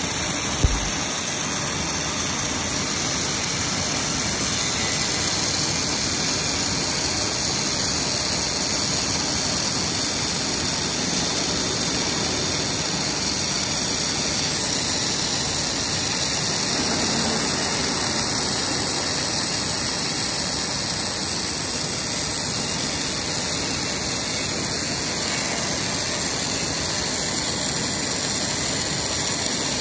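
MIG welding arc giving a steady, even hiss as a carriage-mounted torch runs a continuous bead along a steel plate, with one short low thump about half a second in.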